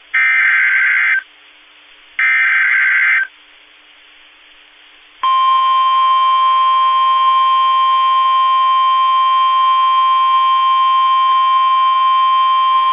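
Emergency Alert System header on NOAA Weather Radio: two short bursts of buzzy digital data tones, about a second each and a second apart, then about five seconds in the steady 1050 Hz warning alarm tone starts and holds. The alert announces a severe thunderstorm warning.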